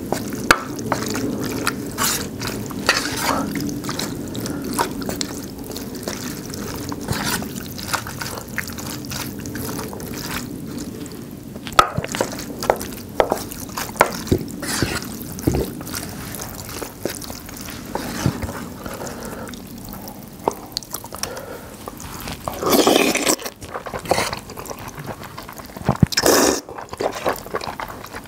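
Wooden spoon stirring rice into a thick, saucy jjamppong jjageuli (spicy seafood noodle stew) in a metal pot: wet squelching with many small clicks of spoons against the pot. Near the end, two loud slurps as noodles are sucked up.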